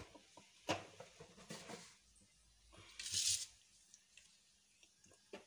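A few light knocks on a stainless steel kadai and, about three seconds in, one short hiss as mustard seeds go into the oil heating in it.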